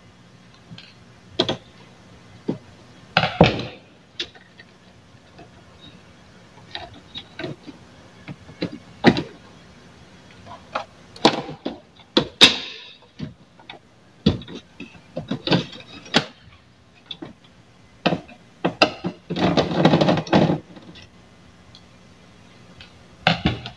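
Hands taking apart a flat-screen TV: irregular clicks, knocks and rattles from its parts and tools, with a denser clatter of about a second near the end.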